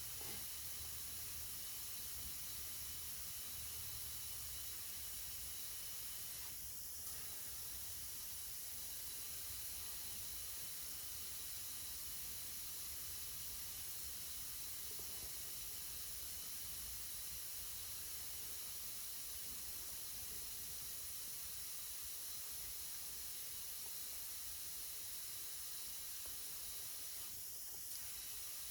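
Compressed air hissing steadily through a tire chuck into a Humvee tire as it is inflated after the bead was set with ether, with two brief faint breaks, about 7 seconds in and near the end.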